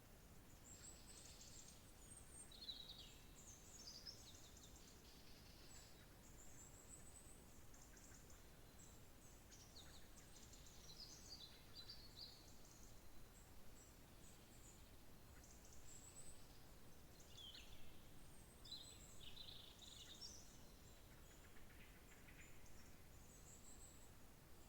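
Faint songbirds chirping and trilling, high-pitched calls following one another without a break, over a low steady background hiss.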